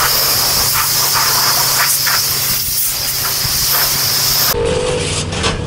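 High-pressure spray wand at a self-serve car wash blasting water onto a car's bodywork: a loud, steady hiss of spray. It cuts off sharply about four and a half seconds in.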